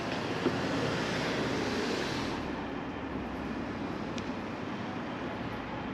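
Steady rushing background noise, swelling over the first two seconds and then easing, with a single sharp click about half a second in.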